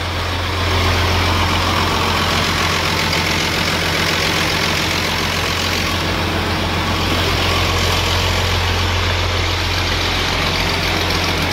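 Big Ford tractor's diesel engine idling steadily with a deep, even hum, freshly started from cold after a temperamental start without easy-start.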